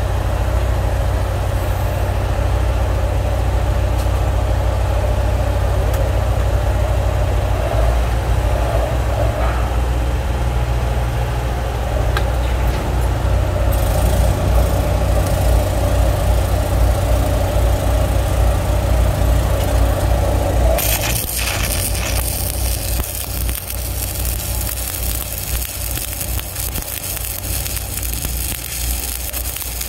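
An engine drones steadily. About 21 seconds in, a stick-welding arc on a 1/8-inch 7018 electrode at about 126 amps is struck and keeps crackling and hissing.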